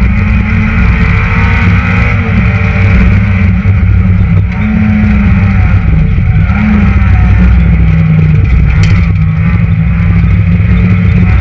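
Citroën Saxo VTS rally car's 1.6-litre four-cylinder engine running hard at high revs, heard from inside the cabin. Its pitch climbs and drops several times as it is worked through the gears, with a single sharp click about nine seconds in.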